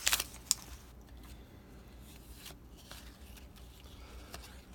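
Faint handling of trading cards: a brief rustle and click at the start, then a few soft clicks and slides as cards are flipped through.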